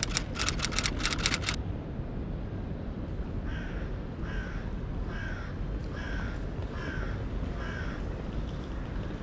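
A bird calls six times in a row, evenly spaced a little under a second apart, over a steady low outdoor city rumble. In the first second and a half there is a short burst of rapid rattling clicks, the loudest sound here.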